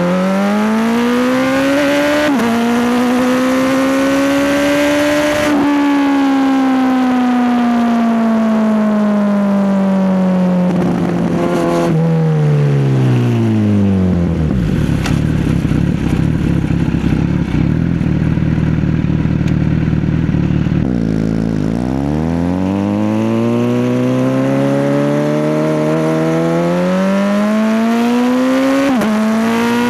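Kawasaki Z900 inline-four engine heard from the bike while riding. Revs climb through two quick gear changes, fall away as the bike slows, and sit at a low rumble for several seconds. The engine then pulls away again with rising revs and shifts up near the end.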